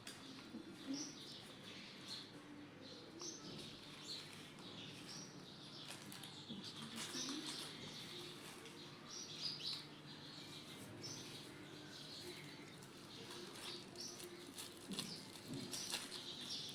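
Small birds chirping faintly on and off in the background, with short scattered calls throughout.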